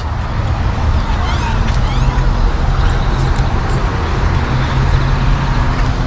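Busy parking-lot ambience: a steady low rumble of traffic, with scattered short, rising calls from a large flock of blackbirds wheeling overhead, clearest between one and two and a half seconds in.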